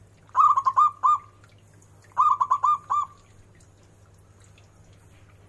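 A local zebra dove (perkutut) cooing with a big voice: two quick phrases of four to five ringing staccato coos each, the second phrase about two seconds in.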